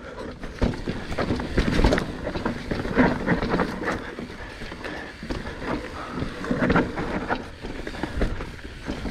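Mountain bike clattering over a rocky technical trail: tyres crunching on dirt and rock, with frequent irregular knocks and rattles from the bike as it hits rocks.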